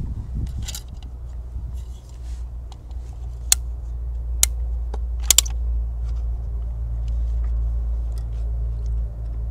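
Manual caulking gun clicking as its trigger is squeezed to push a bead of caulk around a pipe: a few sharp clicks about halfway through. Under them runs a steady low rumble that swells and fades.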